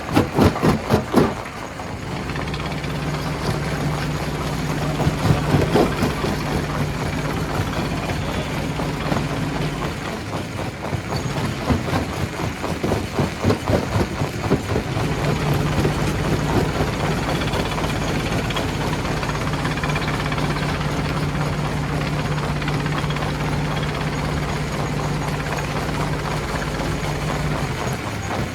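Stone-crushing machinery running with a steady hum, a rapid run of knocks in the first second, and irregular knocks and clatter now and then as rock is worked.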